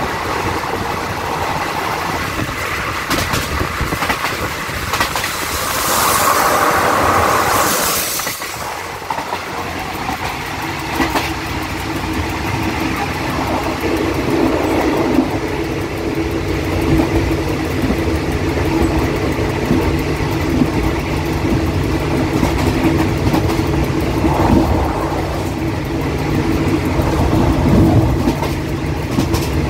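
Diesel-hauled express train running at speed. First comes the noise of wheels on rail and wind past the open side. From about ten seconds in, the steady drone of the locomotive's diesel engine takes over, heard from inside the cab.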